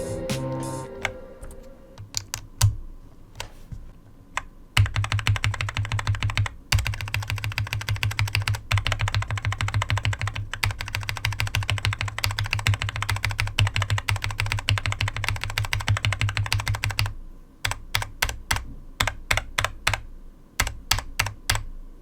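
Mechanical keyboard keystrokes on Huano red linear switches. There are scattered single presses at first, then a long run of fast, steady typing from about five seconds in, easing back to separate presses near the end.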